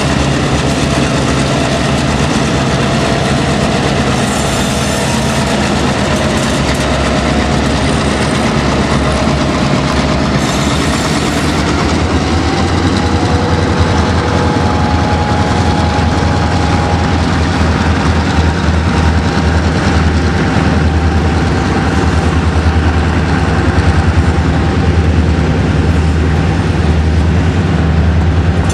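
Freight cars (covered hoppers and flatcars) rolling past close by: a steady heavy rumble with rhythmic clickety-clack of wheels over rail joints. The clicking becomes louder and more regular in the second half.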